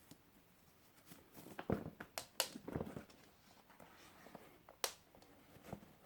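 Handling noises of a pair of leather hiking boots and their packaging: a burst of knocks and rustles in the middle, then a single sharp click.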